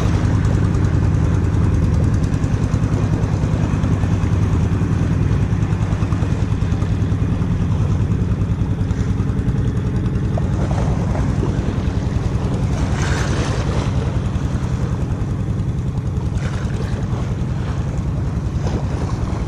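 Steady low drone of an engine running, with a fast, even pulse.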